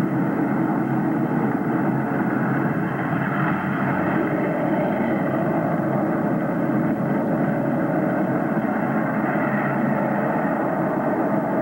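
Steady rushing noise on a police dashcam's wireless-microphone audio, with no voices.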